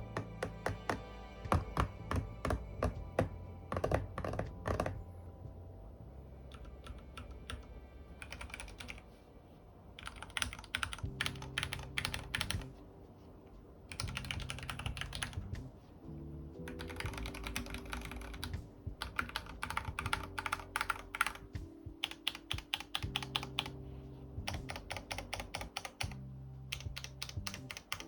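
Typing on the IQUNIX F97 Hitchhiker mechanical keyboard with Cherry MX Red linear switches. The keystrokes come in quick runs broken by short pauses, over background music.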